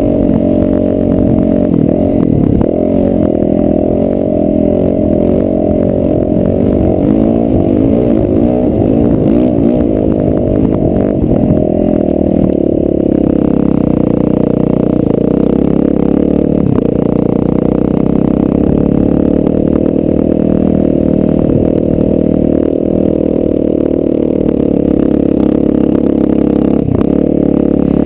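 Dirt bike engine running under load while riding across sand, its pitch rising and falling through the first half and running steadier after about thirteen seconds.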